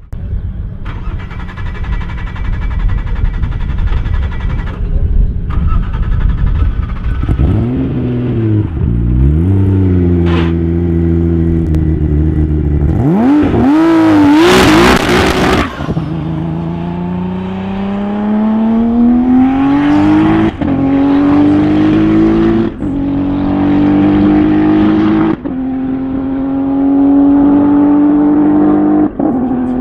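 Porsche sports car engine revving: a few quick throttle blips, then a long climbing engine note broken by brief dips four times, like a car accelerating through the gears.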